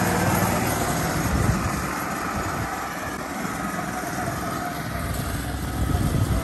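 Raven MVP hybrid ATV being driven over gravel and grass: a steady mechanical rumble of the vehicle and its tyres.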